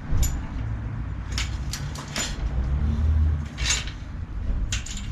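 Scattered metallic clicks and clinks as hands work the refitted rear wheel's axle and hub in a bicycle repair stand, over a low rumble.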